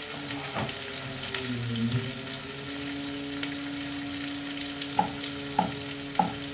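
Sliced tomatoes sizzling and crackling in a frying pan. Near the end, a knife knocks against a wooden chopping board three times, about half a second apart.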